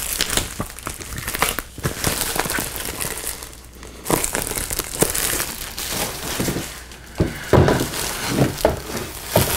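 Clear plastic shrink-wrap being torn and crumpled off a book, a continuous crackly crinkling. Near the end come a few dull knocks as the book is handled on the table.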